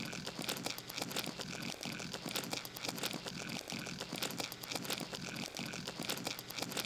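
Clear plastic cups rubbed and scraped against each other on a sheet of paper: a faint crinkly scraping made of many small clicks, in a pattern that repeats over and over at a steady pace.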